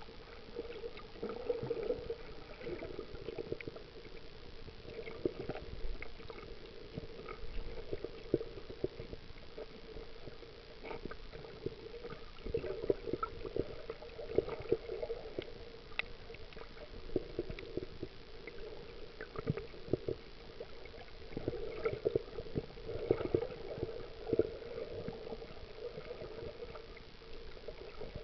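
Underwater sound picked up through a waterproof action camera: a muffled gurgling wash of moving water with many small irregular clicks and crackles, swelling and easing every few seconds.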